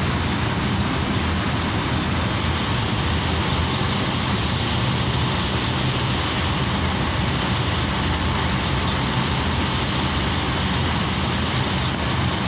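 Truck engine running steadily, heard from inside the cab as the truck drives slowly, a constant low hum under a broad rushing noise.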